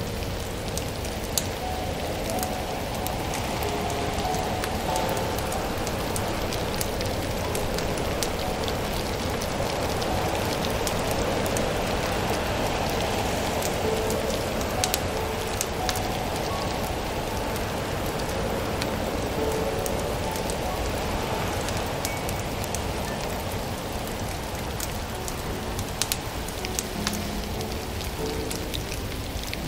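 Wood fire crackling in a stove over a steady hiss, with scattered sharp pops.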